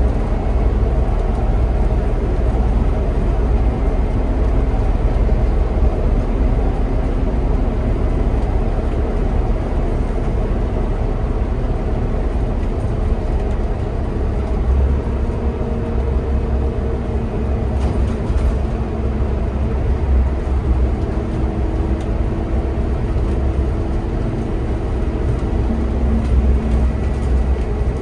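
Scania Citywide city bus moving at speed, heard from inside at the driver's seat: a steady low rumble of engine and road noise, with faint engine tones drifting slowly in pitch.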